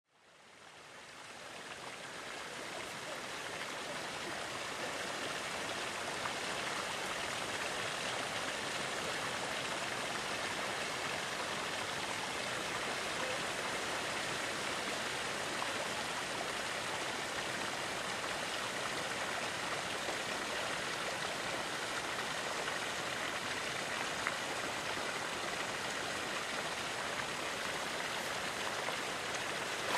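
Thermal spring water running and splashing into a pool, a steady rush of water that fades in over the first two seconds.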